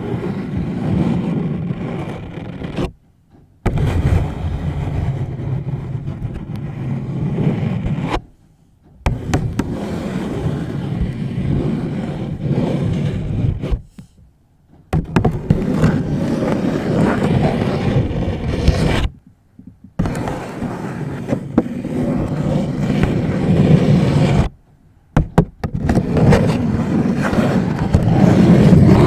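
Long nails scratching a paper bag close to the microphone, in stretches of about five seconds with short breaks between them.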